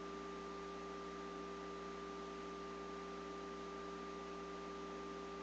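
Steady electrical hiss and hum with a few constant whining tones, unchanging throughout; no mechanical or other sound.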